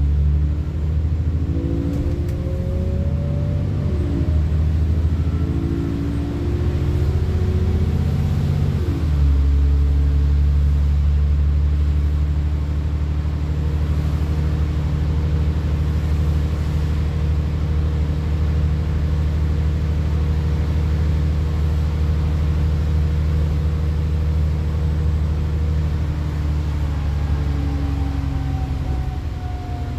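Alexander Dennis Enviro400 double-decker bus's diesel engine heard from on board, pulling hard under acceleration. The engine note rises, drops back about four seconds in and rises again, then settles at about nine seconds into a steady drone. It falls away near the end as the bus slows.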